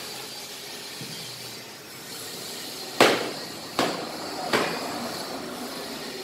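Three sharp, hard knocks with a short ring after each, starting about halfway through and coming under a second apart, the first the loudest.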